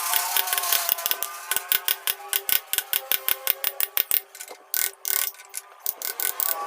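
Wood-carving chisel cutting into wood: a rapid, uneven run of sharp clicks and taps, several a second.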